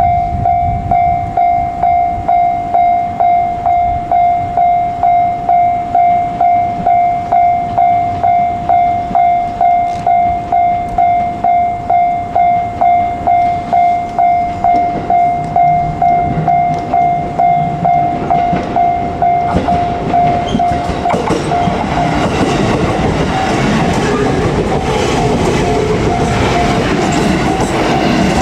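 Japanese level-crossing warning bell ringing one steady tone, about one and a half strikes a second. From about 21 seconds in, the rising noise of a JR Kyushu 787 series limited express train running past over the crossing takes over.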